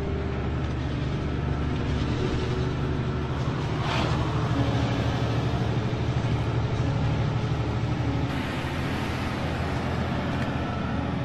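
Truck's diesel engine running steadily under way, a low drone heard from inside the cab with road noise over it. A brief louder noise about four seconds in.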